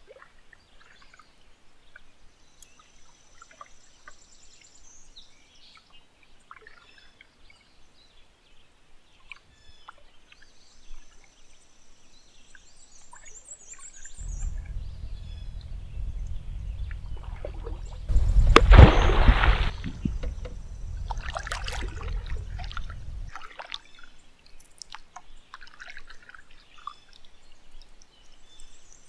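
Water splashing and pouring beside a canoe, loudest for a couple of seconds about two thirds of the way through, over a low rumble. A songbird's high whistled song with a stuttering trill at its end repeats a few times.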